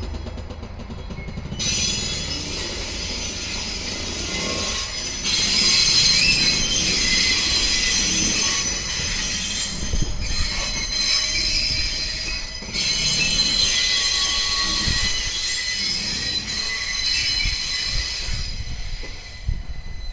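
Steel wheels of KiHa 40 and KiHa 48 diesel railcars squealing on the rails as a switcher shunts them, several high squeal tones at once over a low rumble and a few knocks. The squeal starts about two seconds in, grows louder about five seconds in, and dies away near the end.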